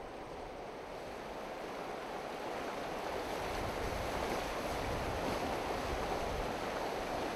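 Water splashing and churning as someone wades fast through a shallow, rocky river, over the river's steady rush. It grows louder a couple of seconds in.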